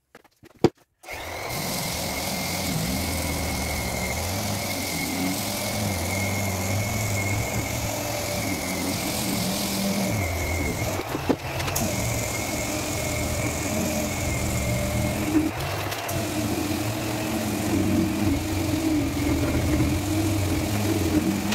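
5-inch random orbital sander starting about a second in after a few clicks, then running steadily with 120-grit paper on an oak door.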